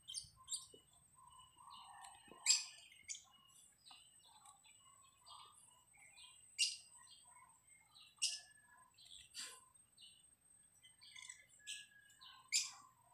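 Faint bird chirps, short and irregular, scattered throughout, with a handful of sharper, louder chirps among them.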